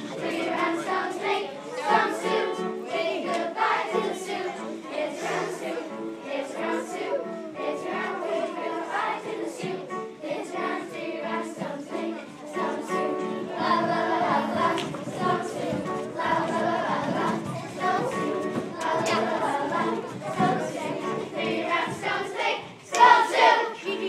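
A group of children singing together as a choir, a continuous sung song with held notes.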